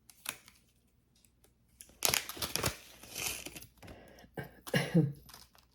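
Plastic bag crinkling and rustling in short bursts, loudest about two seconds in, as jewelry is handled and unwrapped.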